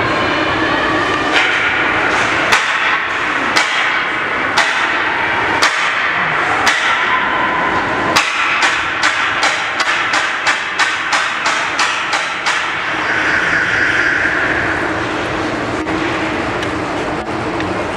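Rhythmic sharp bangs over the steady noise of an arena crowd, one about every second, then speeding up to about three a second before stopping suddenly. A brief held tone follows near the end.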